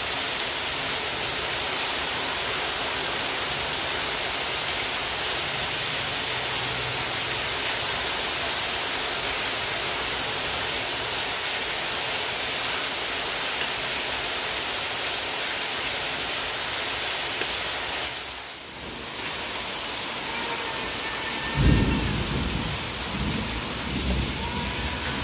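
A steady, even hiss like heavy rain, dipping briefly about 18 seconds in, with a few low rumbling thumps near the end.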